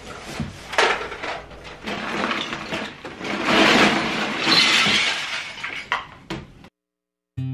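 Plastic toys clattering as a clear plastic storage bin of toys is tipped out onto the floor, after a few scattered knocks and clicks of toys being handled. The clatter is loudest for about two seconds in the middle, and the sound cuts off suddenly near the end.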